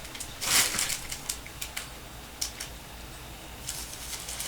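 Trading cards and their packaging being handled: a short brushing swish about half a second in, followed by scattered light clicks and taps.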